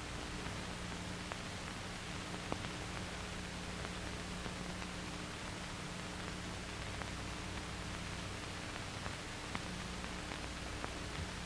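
Steady hiss and low hum of an old film soundtrack between narration, with scattered faint clicks and crackles.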